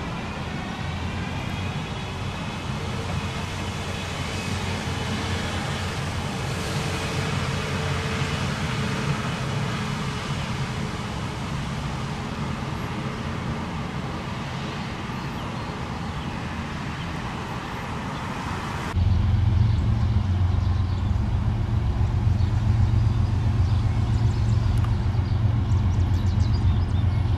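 Diesel-electric freight locomotives of a Union Pacific train running, a steady low rumble. About two-thirds of the way through it turns suddenly louder and deeper.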